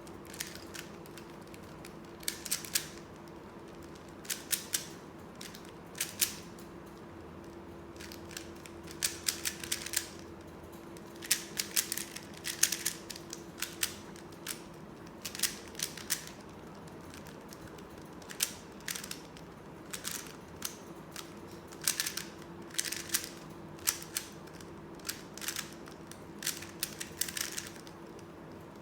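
A 3x3 Rubik's Cube being turned quickly by hand: runs of rapid plastic clicks as the layers snap round, broken by short pauses between sequences of moves.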